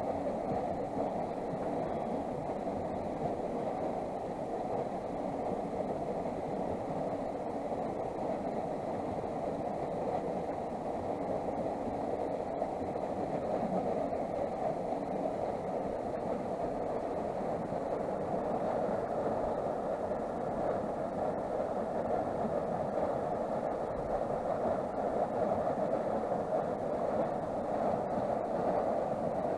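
Creek running high after heavy rain, a steady rush of water.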